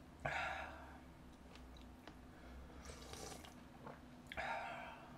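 Close-up eating sounds of spicy mala tang soup taken from a spoon: slurping and chewing, with two louder bursts, one just after the start and one near the end.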